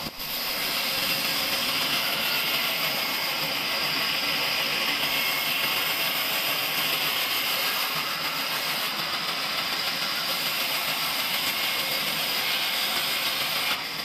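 Large vertical band saw running, its blade ripping lengthwise through a log: a steady hiss with a constant high whine.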